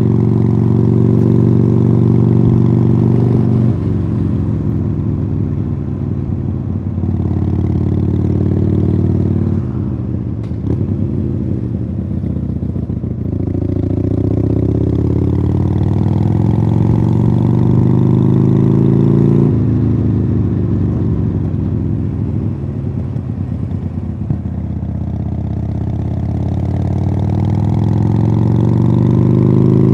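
Harley-Davidson Sportster Iron 883's air-cooled V-twin through aftermarket Khrome Werks Tapered 3 exhausts, heard from the bike under way. The engine note rises under throttle and falls back as the rider eases off, with sudden drops in pitch at gear changes, one sharp one about two-thirds in.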